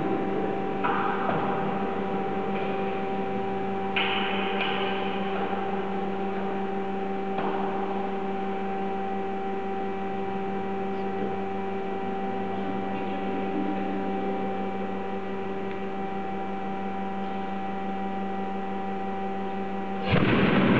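Steady electrical hum with a few metal knocks as the compressed-air wax cannon is worked at its breech. Near the end the hum cuts off and a sudden loud rush of air starts as the cannon fires.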